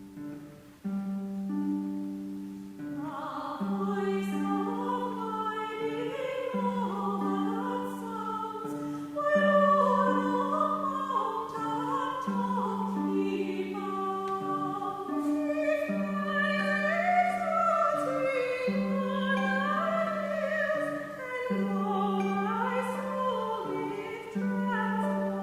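Harp playing a repeating low figure, joined about three seconds in by a singing voice with vibrato in a hymn-like melody.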